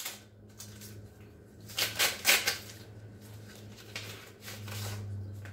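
A paper envelope being opened and the greeting card pulled out: a few short bursts of rustling, tearing paper, the loudest about two seconds in. A steady low hum runs underneath.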